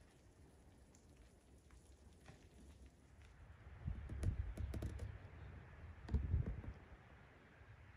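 Close rubbing and clicking handling noise as the camera is moved, in two bouts of low bumps and sharp clicks about four and six seconds in, after a few seconds of faint background.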